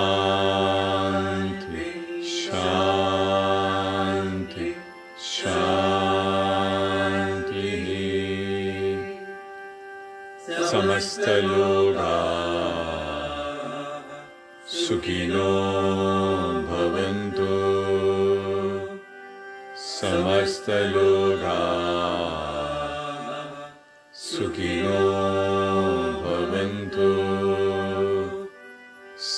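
Voices chanting mantras in phrases of a few seconds with short pauses, over a steady drone, played on a TV from the live Prasanthi Nilayam bhajan and Veda broadcast.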